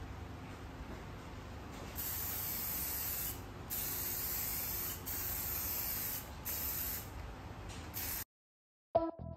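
Aerosol spray can spraying clear coat in a series of hissing bursts, each about a second long with short pauses between. The hiss cuts off suddenly near the end.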